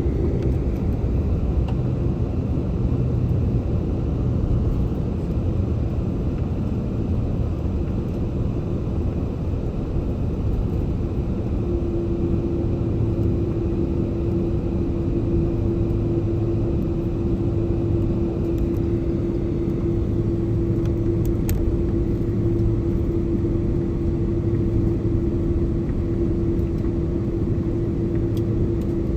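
Steady rumble of an airliner's jet engines and airflow, heard inside the passenger cabin. A steady low hum joins about twelve seconds in and holds to the end.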